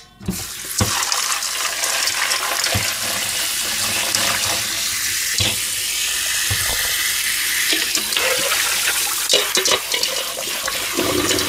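Kitchen tap running steadily into a stainless steel bowl of shrimp in the sink, thawing the frozen shrimp under the stream, with a few light knocks along the way.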